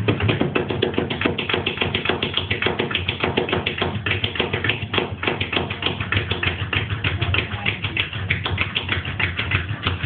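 Rapid clattering taps, several a second, as a Staffordshire bull terrier paws and scratches at a drawer, trying to open it.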